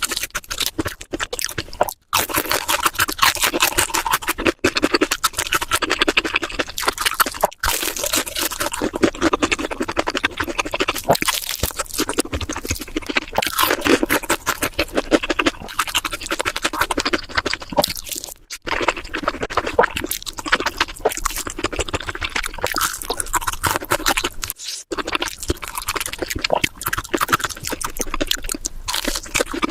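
Close-miked eating sounds: continuous wet chewing and mouth smacking, broken by a few brief sudden gaps.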